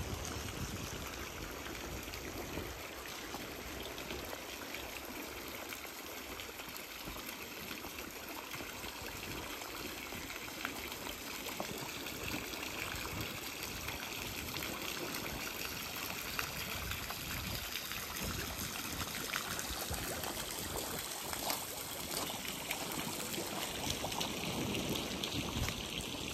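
Steady trickling and splashing of water, an even hiss with faint scattered ticks.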